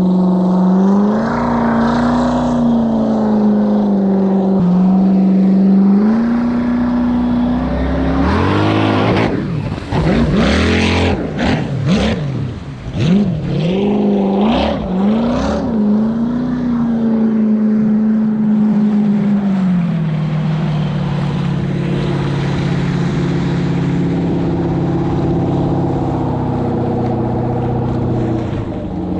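Jet ski engines running over choppy water. In the middle the 6.0 L LS V8 jet ski runs past, its revs rising and falling sharply several times as it rides through the waves, then the engine note settles back to a steady drone.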